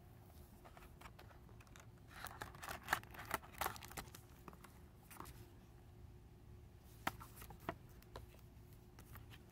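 Cardboard box and clear plastic card sleeves being handled: rustling and crinkling with a few clicks, busiest about two to four seconds in, then a few single clicks.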